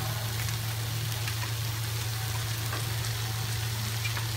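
Mushroom masala sizzling in a pan as it fries, a steady frying hiss with a few faint spoon clicks against the pan, over a steady low hum.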